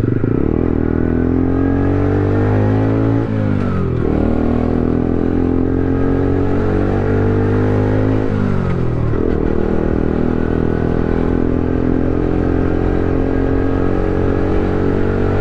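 Small moped engine through a loud aftermarket exhaust, pulling through the gears: the revs rise, drop at an upshift about three seconds in, rise again and drop at a second upshift about eight seconds in, then hold steady at cruising speed. The exhaust is loud enough to border on a noise nuisance.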